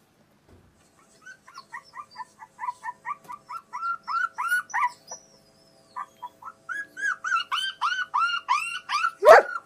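A dog whining in a fast run of short, high yelps that rise and fall in pitch, about three a second. The run pauses briefly about five seconds in, resumes, and ends with a louder bark.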